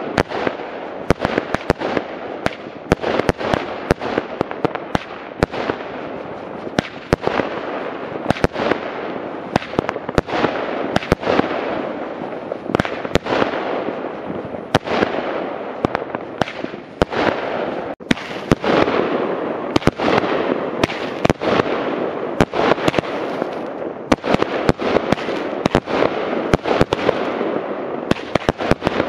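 Firework cake (compact) firing a rapid, sustained barrage: sharp launch bangs and bursts several times a second over a continuous crackle and hiss of burning stars, with a brief lull about eighteen seconds in.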